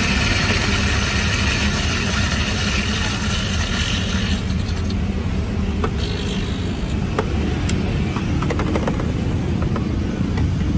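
Electric burr coffee grinder running and grinding beans. The grinding noise falls away about four seconds in, leaving a low hum and a few light clicks and taps.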